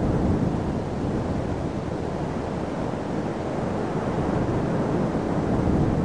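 Cold winter wind buffeting the microphone: a rough, rumbling rush heaviest in the low end, easing slightly midway and building again toward the end.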